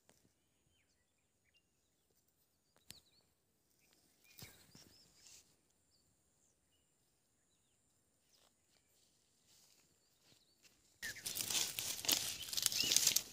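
Quiet outdoor air with faint short bird chirps, then about 11 s in a loud, dense crackling and rustling of dry leaf litter being disturbed.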